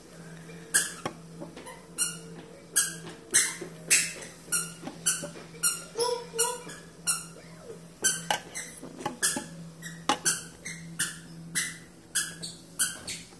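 Plastic dropper being squeezed over and over, short squirts and squeaks about two a second, as vinegar is dripped onto dye crystals on the eggs. A steady low hum runs underneath.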